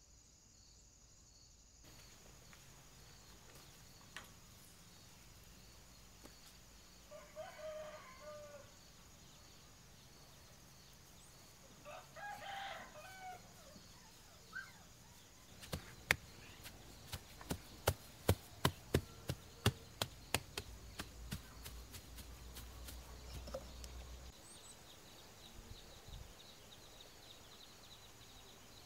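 A rooster crows twice, about seven and twelve seconds in, over a steady high buzz of insects. Midway, a run of about a dozen sharp taps comes roughly two a second, the loudest sound.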